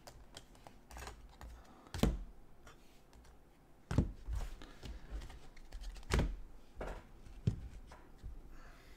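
Clear hard plastic card cases being handled and stacked on a desk: light clicking and rubbing, with four sharper knocks as cases are set down on one another.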